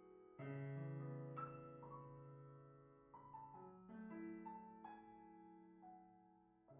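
Quiet, slow background piano music: single notes and soft chords are struck about once a second and left to ring and fade.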